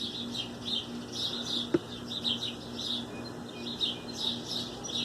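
Small birds chirping, with many short high calls in quick succession, over a faint steady low hum. There is a single sharp click a little under two seconds in.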